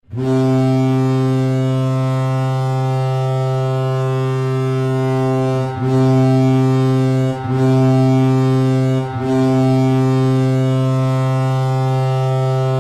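Colorado Avalanche goal horn, a deep ship-style horn, blowing for a goal: one long blast of nearly six seconds, two short blasts, then another long blast.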